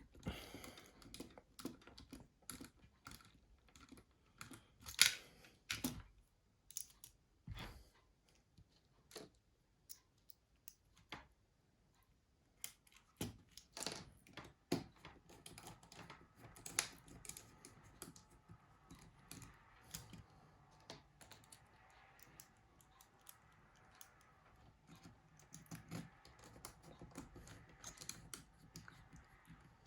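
Small, irregular clicks and taps of a precision screwdriver and tiny screws as the Nokia E71's housing screws are put back in, with a few sharper taps among them. A faint steady hum sits behind the clicks from about halfway through.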